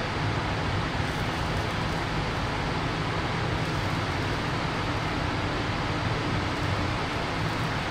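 Steady industrial plant background noise: a continuous low machinery hum with an even hiss over it.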